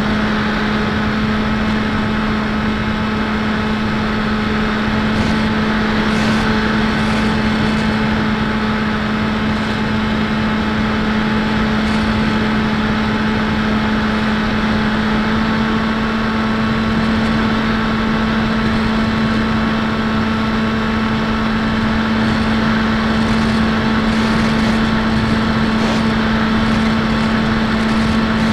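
The electric outrunner motor and propeller of a Bixler 1.1 foam plane, heard from its onboard camera, droning at a steady pitch at constant cruise throttle over a rush of air.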